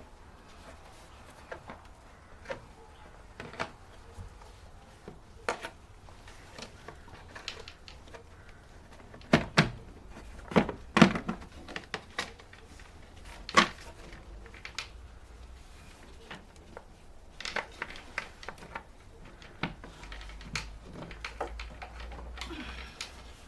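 Hands working on the plastic air filter housing, making scattered light clicks and a few louder knocks of hard plastic, clustered about halfway through.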